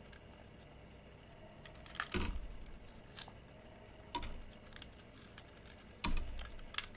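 Hands handling hard parts while working on a fluorescent shop-light fixture: three sharp knocks, about two seconds apart, among lighter clicks and clatter.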